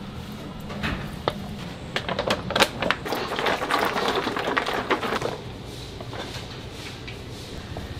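Plastic sauce bags crinkling and clicking as thick sauce is squeezed out into a steel wok and stock pot, a busy run of sharp clicks and rustling that stops about five seconds in, leaving a low steady kitchen hum.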